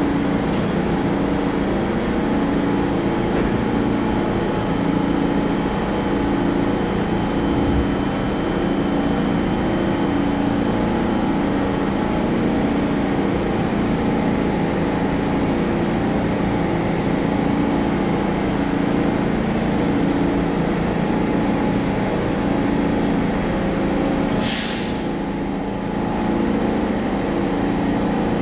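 R46 subway car standing with its doors open, its onboard equipment giving a steady, pulsing mechanical hum. About 24 seconds in, a short, sharp burst of compressed-air hiss from the car's air system.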